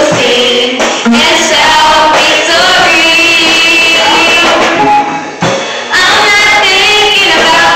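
Gospel singing by several voices together with music, dropping off briefly about five seconds in.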